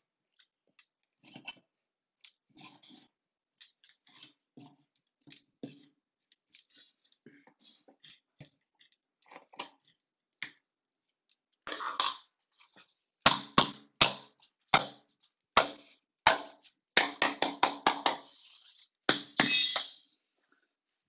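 Steel pry bar scraping and prying along the floor edge at the baseboard. At first it gives short, scattered scrapes, then from about halfway it turns into a quicker run of louder scraping with sharp knocks.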